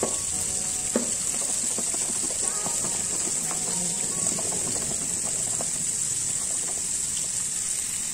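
Battered oyster mushrooms deep-frying in hot oil in a pan: a steady sizzle, with two sharp clicks, one at the start and one about a second in.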